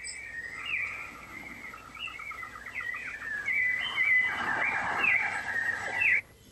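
Small birds chirping in quick, repeated, overlapping notes, cutting off suddenly about six seconds in.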